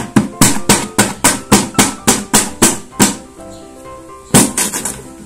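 A wooden stick jabbing holes through a sheet of paper in quick, even pokes, about four a second, for about three seconds. After a short pause comes a quick cluster of louder pokes. Background music plays underneath.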